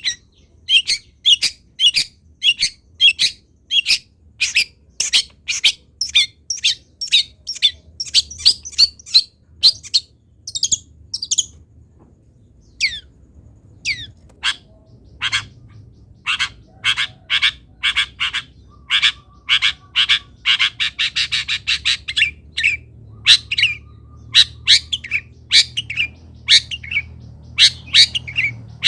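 Long-tailed shrike (cendet) calling in a long series of short, sharp, harsh notes, about two a second, with a brief pause a little before the middle and a fast chattering run of notes about two-thirds of the way through.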